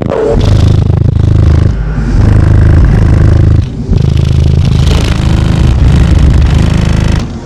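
Four American Bass 15-inch car subwoofers on 4000 W playing deep bass notes very loud, in long blasts with short breaks about two and four seconds in.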